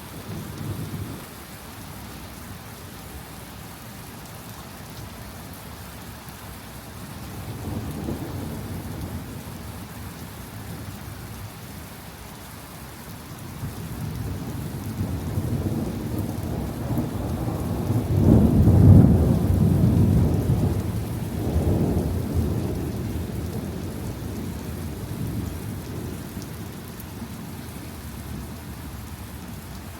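Steady heavy rain falling, with thunder rumbling: a short low rumble about a quarter of the way in, then a long roll that builds from about halfway, is loudest around two-thirds of the way through, and dies away.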